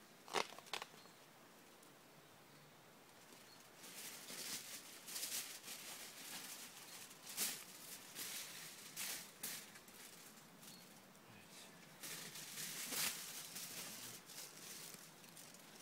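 Aluminium foil being handled, folded and crinkled in repeated bursts, with a sharp click about half a second in.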